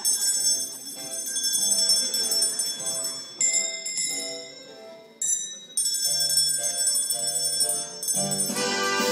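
Bells struck a few times, each strike ringing on, over a simple tune of short notes. Near the end fuller string music comes in.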